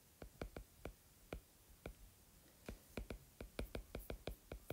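Faint, irregular clicks of a stylus tapping on a tablet screen while figures are handwritten. A few come spaced out at first, then they quicken into a rapid run in the second half.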